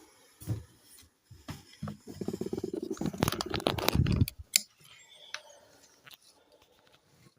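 Packaging being handled and pulled open: a few scattered knocks, then about two seconds of dense crackling and rustling that stops abruptly.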